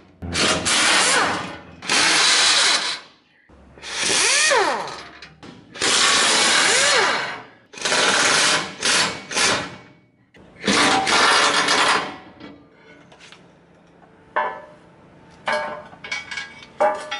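Air-powered wrench run in repeated bursts of a second or two each, undoing bolts; in a couple of the bursts the pitch winds up and down. Later come a few separate knocks and clanks.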